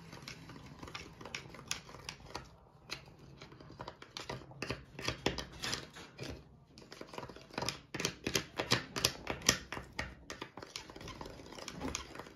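A spoon stirring slime mix in a mixing cup: quick, irregular clicks and scrapes against the cup's sides, busier from about halfway through.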